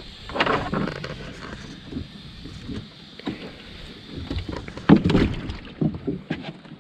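Scattered knocks and clunks of gear being handled in a small boat, the loudest about five seconds in.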